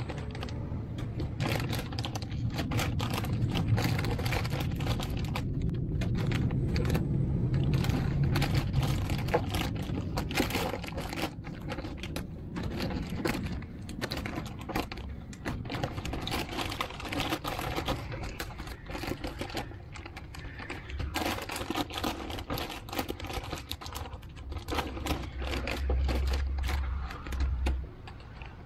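Adhesive advertising sticker being peeled off a car door by hand: a dense, irregular crackling and ticking as the sticker pulls away from the paint, mixed with the crinkle of a plastic bag being handled. A low rumble sits underneath for the first several seconds.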